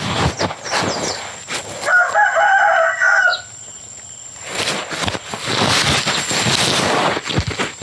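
A rooster crowing once, about two seconds in, for about a second and a half; scattered clicks before it and a stretch of scratchy noise after it.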